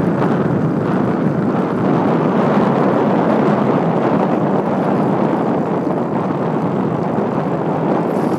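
Steady road and wind noise of a car driving along, an even rush that holds the same level throughout.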